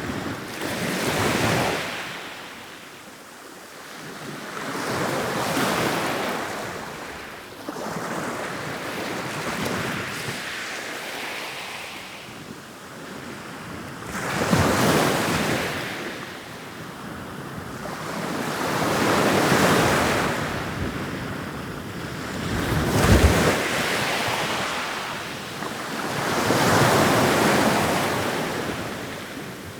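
Ocean waves rolling in and washing up, the surf hiss swelling and fading in a slow repeating rhythm, about one wave every five seconds. Wind buffets the microphone, most sharply about three-quarters of the way through.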